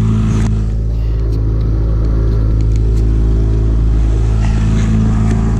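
Boat outboard motor running steadily at trolling speed, a low, even hum.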